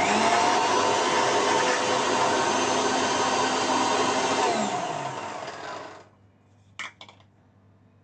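Electric mixer grinder running at full speed, its steel jar grinding fried onions into a paste. It is switched off about four and a half seconds in and winds down with a falling whine, stopping at about six seconds. A short knock follows about a second later.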